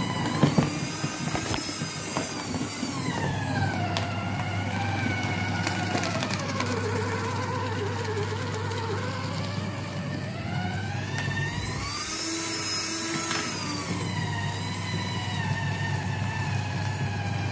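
Electric paper shredder running with a steady motor hum while a box is fed through, its whine sinking and rising again a couple of times as the motor labours on the load, with occasional sharp crackles of the material being cut.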